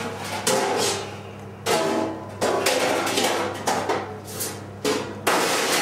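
Stainless steel kitchen trays clattering and knocking as raw chicken pieces are handled and laid into them, in a string of uneven clanks and rustles, over a steady low hum.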